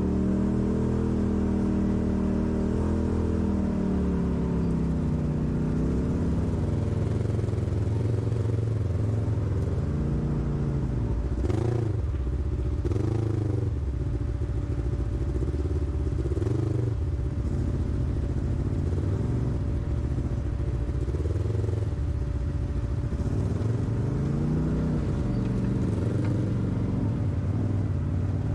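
Off-road vehicle engine revving up and down over and over, as when crawling over rough trail, with one sharp knock about twelve seconds in.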